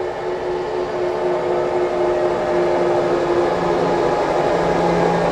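Motor drive of a fire truck's powered rear stairway running steadily as the stairway lifts to open the storage compartment beneath it: a continuous mechanical hum with a steady whine, growing slightly louder as it goes.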